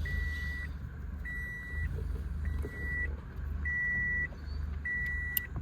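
Electronic warning beep: a single steady high tone about half a second long, repeating roughly every 1.2 seconds (five beeps), over a low steady rumble.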